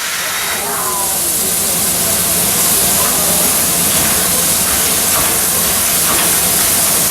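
Steam hissing loudly from JNR Class C57 steam locomotive C57 1, a steady rush that swells over the first couple of seconds and then holds.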